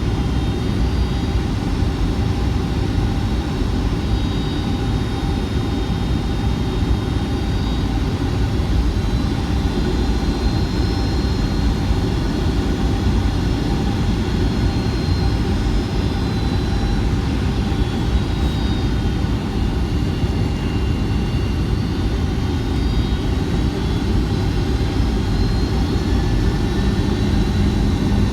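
Steady engine and airflow noise heard inside the cabin of a Boeing 757-200 airliner in flight, a low, even rush with faint high whistling tones above it.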